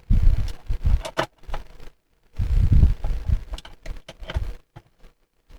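Handling noise from small tools and parts on a workbench: clusters of low knocks and sharp clicks, twice, with abrupt drops to dead silence between them.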